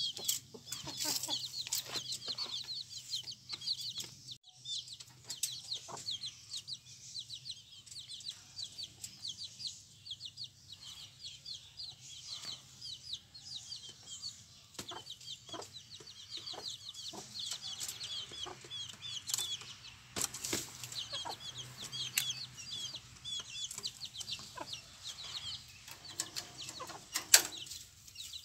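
A brood of young chicks peeping continuously in quick, high, falling cheeps, with scattered small clicks and taps and one sharp knock near the end.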